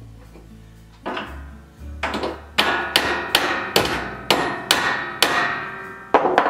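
Hammer tapping on a sheet-metal windmill fan wheel and hub, a dozen or so light blows at about two a second, starting about a second in. Each blow leaves a short metallic ring. The taps nudge the hub toward centre between the blade tips.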